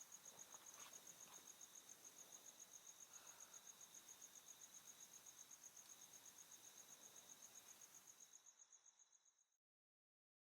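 A cricket chirping faintly in a fast, even pulse of one high note, fading out near the end and cutting to silence.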